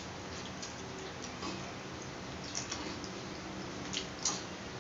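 Eating sounds: scattered short wet mouth clicks and smacks from chewing grilled street-food skewers, about five in all, two of them close together near the end, over a steady faint hiss.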